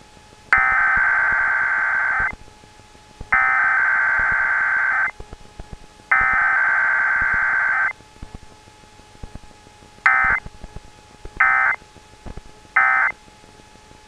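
EAS SAME digital data bursts broadcast over FM radio for a Required Weekly Test: three long header bursts about a second apart, then three short end-of-message bursts, with no attention tone or voice message.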